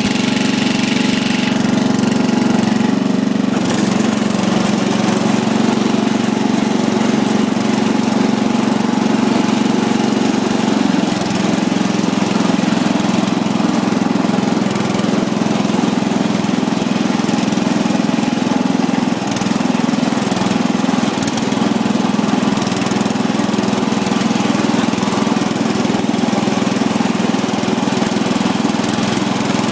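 Riding lawn mower's small engine running continuously under load, its pitch shifting a few times as the throttle and load change.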